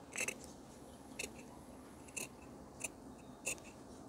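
Tailoring scissors snipping through blouse fabric, about five short snips a second or less apart.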